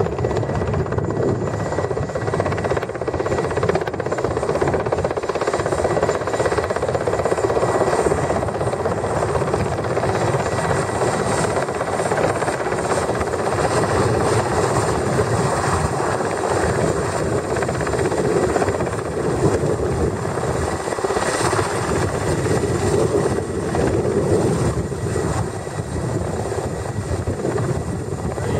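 Helicopter running steadily, a loud, even noise of engine and rotor with no let-up.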